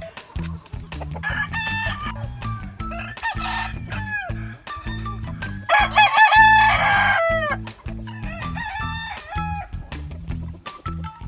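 Several gamefowl roosters crowing, their crows overlapping and following one another, the loudest burst of crowing about six seconds in.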